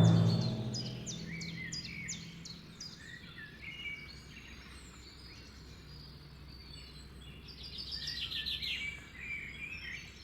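Small birds chirping: repeated short down-sweeping chirps, with a louder rapid trill about eight seconds in, over a faint steady low hum. Brass music dies away at the very start.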